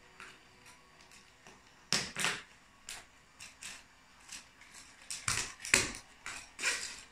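Plastic toy train cars cracking and clattering under a stiletto heel: a few sharp cracks and clicks about two seconds in, then a louder run of cracks between about five and six seconds in.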